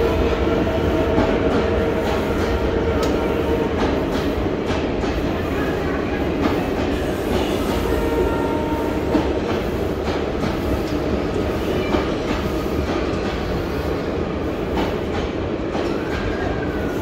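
Express train's passenger coaches running through a station at speed: a steady rumble of steel wheels on rail, with repeated clicks as the wheels pass over rail joints.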